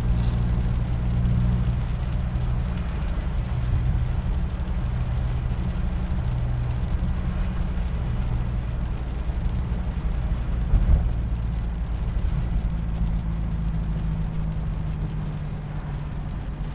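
Car interior on the move on a wet road: a steady low engine and road drone, with a brief thump about eleven seconds in.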